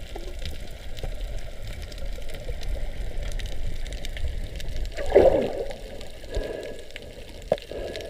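Muffled underwater water noise picked up by a submerged camera: a steady low rumble with light hiss, and a short, louder gurgle about five seconds in.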